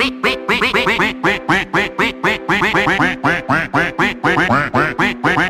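Novelty meme music: rapid rhythmic duck-like quacks set over a backing of sustained notes.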